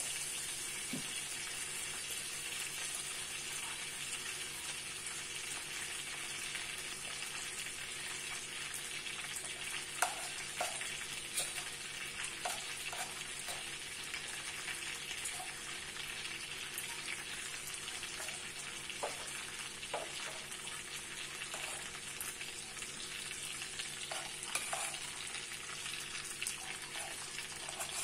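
Fish frying in hot oil in a wok: a steady sizzle with occasional sharp pops and crackles of spitting oil.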